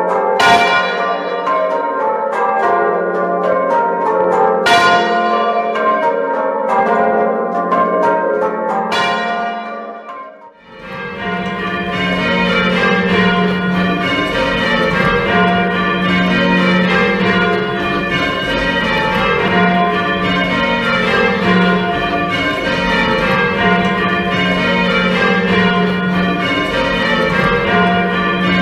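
Church bells rung in changes, fully muffled, so most strokes come out dull and clouded. The tenor is left open at backstroke and gives one clear, sharper stroke about every four seconds. This fully muffled ringing is the traditional ringing of mourning for a sovereign's death. About ten seconds in, the sound drops briefly and another stretch of the same muffled ringing follows.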